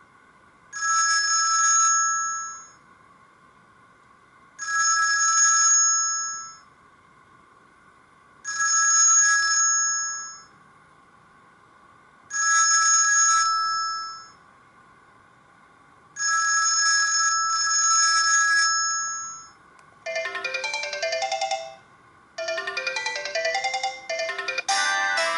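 Sony Ericsson K200i mobile phone ringtones. A steady, pitched ring tone sounds for about two seconds, five times, about four seconds apart. About 20 s in, a different ringtone starts: a fast melody of quickly changing notes.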